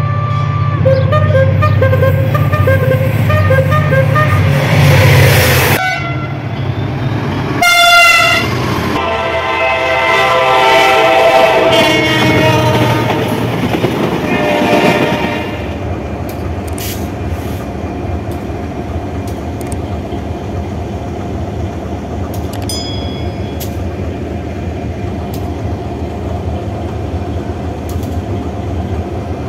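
Diesel locomotive horns sounding: a run of changing notes at first, a short loud blast about eight seconds in, then a long chord that fades out around the middle. After that, a steady diesel locomotive engine rumble with a few faint clicks and a brief high squeal.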